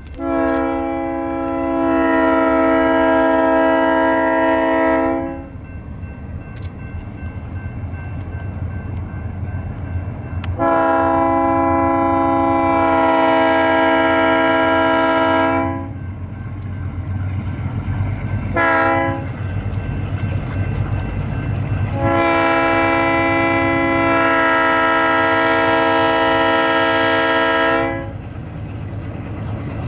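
Alco diesel locomotives' multi-note air horn sounding the grade-crossing signal: two long blasts, one short, one long. Under it, a low diesel engine rumble from the locomotives working upgrade, growing stronger toward the end as they come closer.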